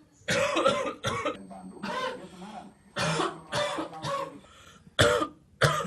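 A young man coughing repeatedly, about eight coughs in short groups with pauses between: the persistent cough of pulmonary tuberculosis.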